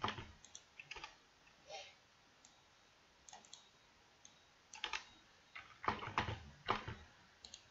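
Computer keyboard keys clicking in scattered short bursts during text editing, with pauses between.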